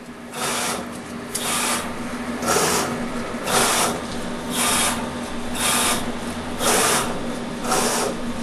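Multitroniks LX2000 pick-and-place robot running its move test: the gantry's axis motors whir in short bursts about once a second as the placement head moves, over a steady low hum.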